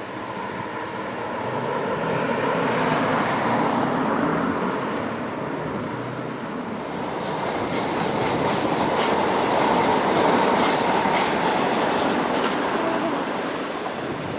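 Train running through the station with a steady rumble that swells twice, and wheels clicking over rail joints or points in the second half.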